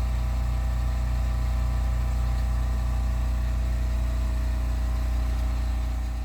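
A steady low machine hum, unchanging throughout, with a deep drone and faint even tones above it.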